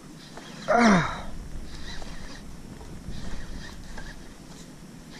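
A short, loud grunt falling in pitch about a second in, a man straining against a hooked fish on the rod, then a low steady hiss of wind and water.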